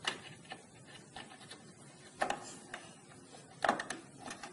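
Scattered light plastic clicks and taps as a DDR2 RAM stick is handled and slid into a motherboard memory slot. The two strongest come about two seconds in and again near three and a half seconds.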